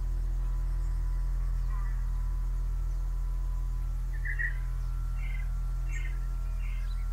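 Ambient drone composition: a steady low hum with several thin held tones above it, and from about four seconds in, four short chirps a little under a second apart.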